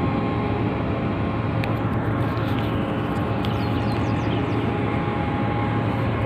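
Steady low drone of a ship's engine and machinery, with a constant hum and a few steady higher tones, and a few faint high chirps over it.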